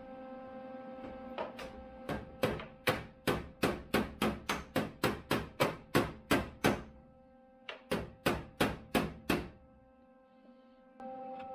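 Hammer blows on a sheet-metal patch panel, tapping it into line against the VW Beetle's inner fender: a quick run of about fifteen sharp knocks, roughly three a second, then a short pause and about seven more. Background music plays underneath.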